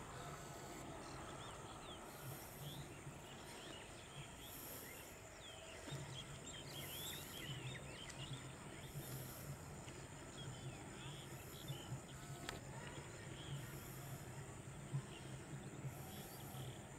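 Faint outdoor ambience: small birds chirping in quick short notes, thickest partway through, over a high insect buzz that pulses about once a second and a low steady hum.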